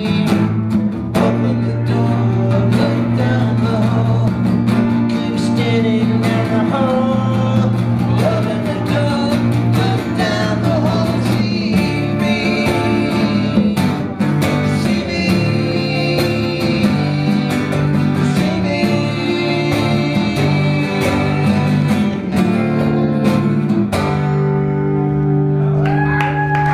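Live acoustic band playing a blues-tinged song: strummed acoustic guitars, congas and a male lead vocal. About 24 seconds in the song settles onto a final held chord that rings on.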